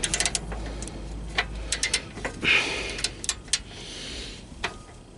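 Hand tools working on a seized oxygen sensor, making sharp clicks and clinks in a few quick clusters.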